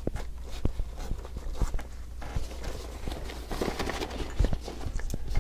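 Camera handling noise: irregular knocks and clicks over rustling as the camera is picked up and moved around, with a denser rustle about three and a half seconds in.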